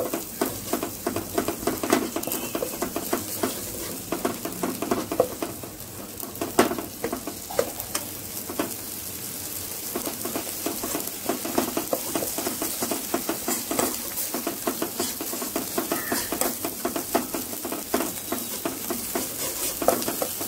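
Ginger-garlic paste frying in oil in a kadai, sizzling, while a steel ladle stirs and scrapes it against the pan in many quick, irregular clicks and scrapes.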